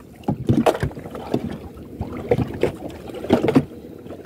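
Choppy water slapping and lapping against the side of a small boat in irregular splashes, with some wind on the microphone.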